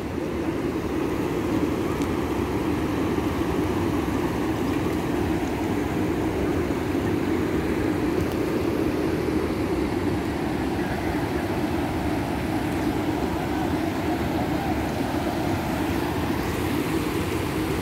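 Steady rushing of brown floodwater flowing across a road and spilling over a bank, an even roar with no breaks.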